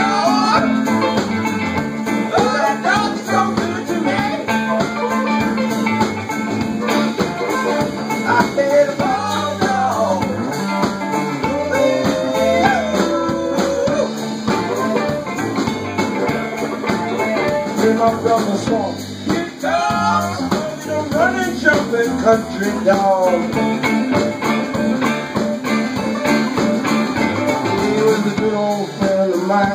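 Blues band playing live: amplified harmonica cupped to a hand-held microphone, with bending, wavering notes, over electric guitar, banjo and a drum kit.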